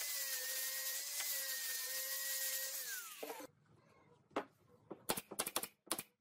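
Angle grinder with a foam sanding pad running steadily against wood, its whine falling in pitch as it winds down about three seconds in. Then a pneumatic nail gun fires about six sharp shots in quick succession.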